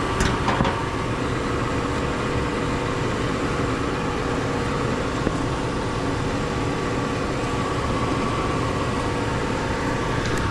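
HVAC blower motor running with a steady mechanical hum and several constant tones, with a light knock near the start. The motor is the one the customer complained of as loud, and the technician judges it needs replacing.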